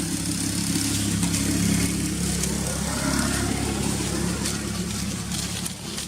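A motor vehicle engine running steadily, with a broad hiss over it.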